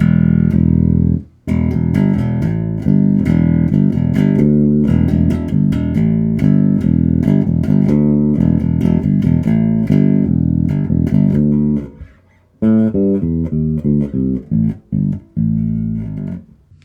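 Electric bass guitar played through an Ashen APG1000.2 bass amp head with its treble control turned off, a riff of plucked notes. There is a short break about a second in and another past the middle, after which quicker single notes are played and then stop near the end.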